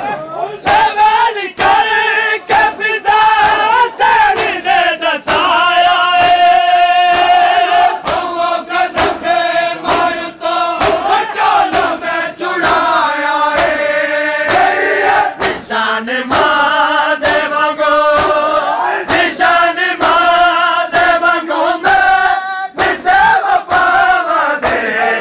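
Crowd of men chanting a Muharram nauha together in loud unison, the sung lines held and repeated, with the sharp slaps of hands beating on chests (matam) throughout.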